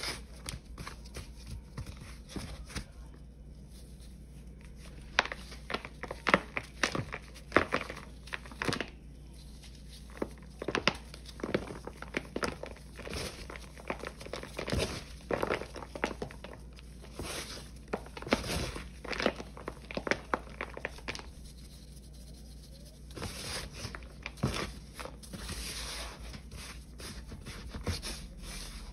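Gloved hands crushing and crumbling clumps of dried Ajax, Pine-Sol and Palmolive paste into powder in a plastic tub: runs of crisp crunching and crackling with short pauses, and softer rubbing and sifting of the powder near the end.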